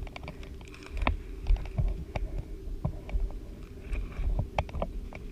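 Scattered sharp clicks and low knocks close to the microphone, spaced irregularly, over a faint steady hum.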